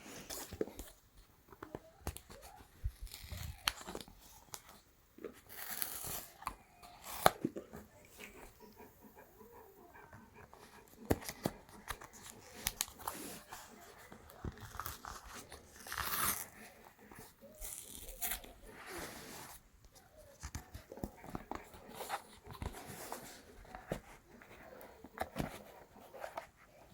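Packaging of a Samsung Galaxy S24 Ultra retail box being opened: tearing and peeling of seals and film, with rustling and scattered clicks and taps of cardboard and plastic being handled.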